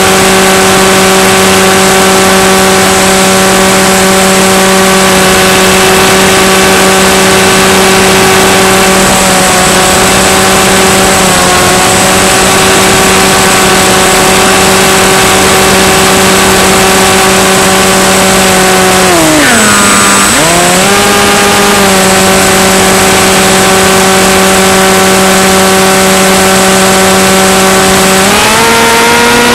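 Electric motor and propeller of a Skywalker FPV plane droning steadily under a heavy hiss. About two-thirds of the way through the pitch dips sharply and comes back, and near the end it rises.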